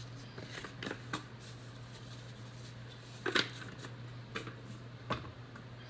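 Spice containers and a measuring spoon being handled while seasoned salt is measured out: scattered light clicks and knocks, the loudest about halfway through, over a steady low hum.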